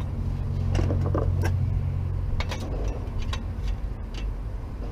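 Scattered metal clinks and light knocks of a fan spacer and bolts being handled at a truck's fan pulley, over a steady low hum.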